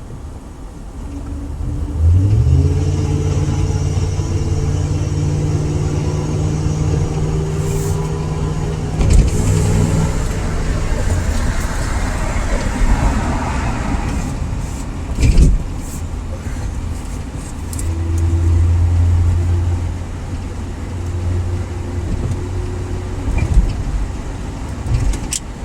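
Ford Crown Victoria's 4.6 L V8 pulling under acceleration with a deep, throaty exhaust drone that rises about two seconds in and holds, then swells again later, with a couple of short knocks between. The throaty note comes from a hole in the left rear exhaust.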